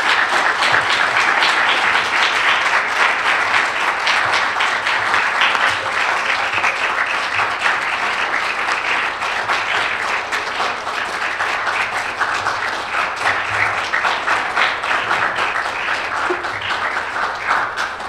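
Audience applauding: a long, steady round of clapping that eases a little toward the end.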